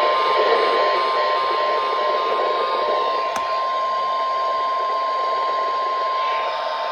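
NOAA Weather Radio's 1050 Hz warning alarm tone, one continuous steady beep, received over heavy radio static, with a faint click about three seconds in. The tone is the signal that an emergency alert broadcast is about to follow.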